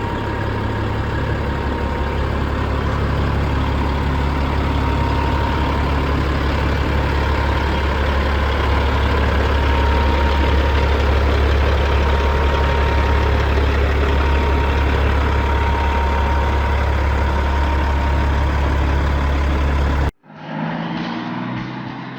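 Caterpillar 3406E six-cylinder diesel in a 1998 Peterbilt 379EXHD idling steadily, heavy and low. The engine sound cuts off abruptly near the end.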